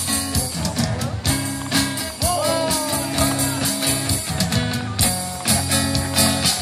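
Live band jamming rock music: drums and cymbals keeping a steady beat under bass and guitar, with a few bending melody lines over the top.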